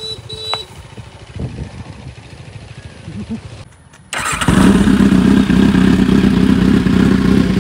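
Kawasaki Z800's inline-four engine with a decat exhaust, cutting in suddenly about four seconds in and then idling loud and steady with a deep hum.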